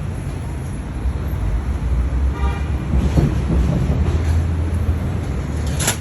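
Steady low road-traffic rumble with a short vehicle horn toot about two and a half seconds in, and a sharp click near the end.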